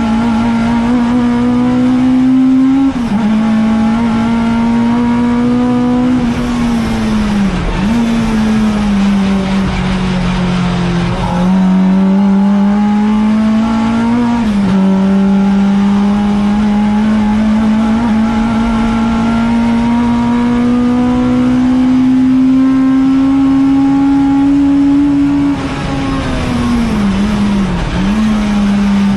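Ford Fiesta ST150 race car's four-cylinder engine under hard acceleration, heard from inside the cockpit. Its note climbs slowly and drops sharply at several gearchanges.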